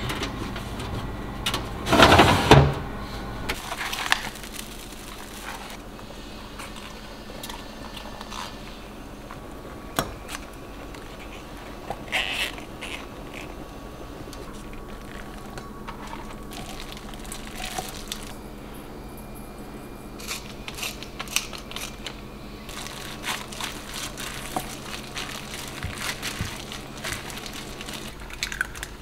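Kitchen handling sounds: a short loud burst of handling noise about two seconds in, then scattered small clicks and taps over a steady low hum.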